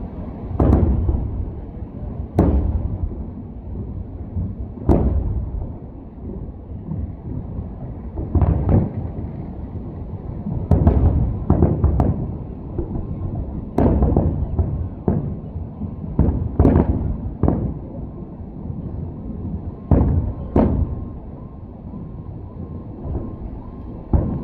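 Aerial fireworks bursting: about a dozen sharp booms at irregular intervals, some in quick pairs, with a low rumble between them.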